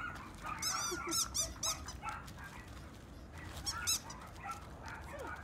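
Black Labrador retriever whining in short, high-pitched squeaky calls, in a quick run about a second in and again near four seconds in, excited during play.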